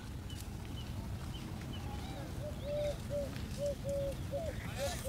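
An animal calling outdoors: a short note repeated again and again, some ending in an upward hook, over a steady low background rumble.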